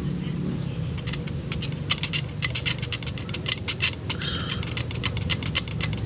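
Utility knife blade scraping the copper trace of a remote control's circuit board bare: a fast, irregular run of short scratches starting about a second in. The trace is being cleaned because it gives only a partial continuity reading.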